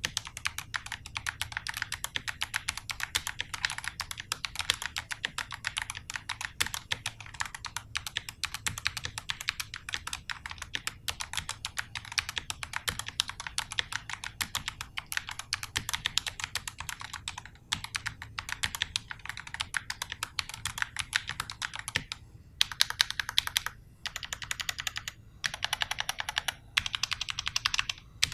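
Fast typing on the NYK Nemesis Loki MKN-10, a 60% hot-swappable mechanical keyboard with Otemu switches: a dense, continuous run of keystroke clacks, broken by a few short pauses in the last several seconds.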